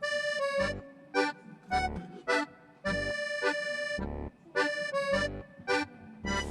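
Background music: a bouncy tune of held melody notes over a steady low beat.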